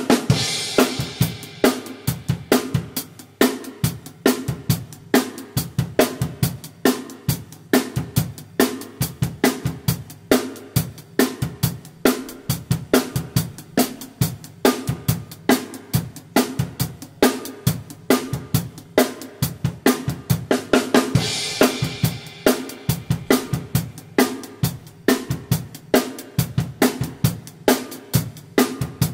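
Acoustic drum kit with Sabian HHX cymbals played on its own, with no other instruments, in a steady pop groove of kick, snare and hi-hat. A cymbal crash rings out at the start and another about twenty-one seconds in.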